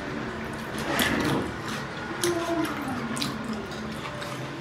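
Close-up eating sounds: fingers squishing rice and pork with rayo saag together and mouths chewing, with scattered wet smacks and clicks.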